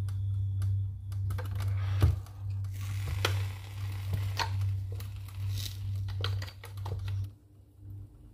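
Clicks and knocks of a Kenwood sandwich maker being handled as the sandwiches are set on its plates and its plastic lid is closed and latched, the loudest knock about two seconds in, over a steady low hum. The sound drops away shortly after seven seconds.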